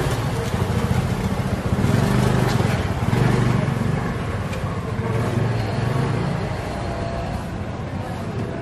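Street traffic noise: a motor vehicle engine running close by, a steady low hum under the general noise of the road.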